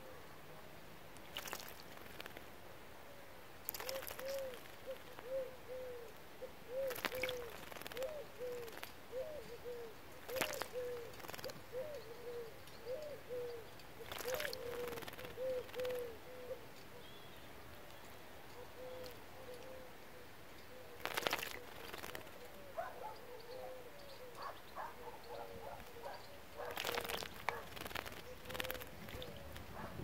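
A female common redstart splashing as it bathes in a birdbath, with sharp bursts of splashing and wing flutters a number of times, the densest near the end. Behind it, a low hooting note repeats about twice a second for long stretches.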